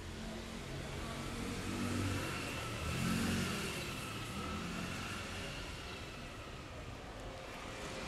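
A passing motor vehicle, its sound swelling to a peak about three seconds in and then slowly fading.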